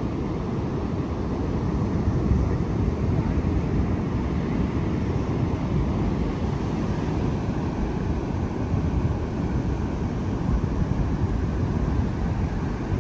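Falcon Heavy's launch rumble heard from many miles away: a steady low rumble with no distinct events, mixed with wind on the microphone.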